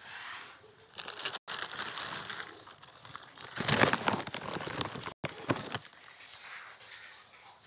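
Clear plastic sheet crinkling and rustling as a cat shifts about beneath it. The rustle is loudest around the middle and is cut by two brief dropouts.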